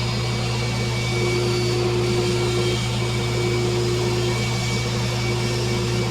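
Electric motor of a workshop machine running steadily, with a constant low hum and a steady whine.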